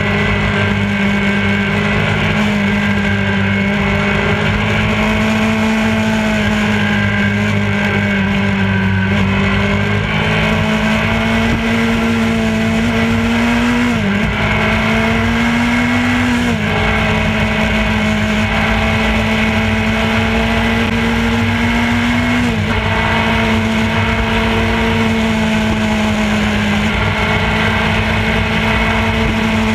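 Motorcycle engine running at highway cruising speed, its pitch slowly creeping up and then dropping back three times, over steady wind and road noise.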